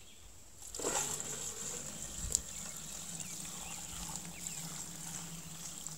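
Old, contaminated gasoline poured from a plastic bucket through a funnel into a plastic gas can: a steady stream of liquid that starts about a second in and runs on evenly.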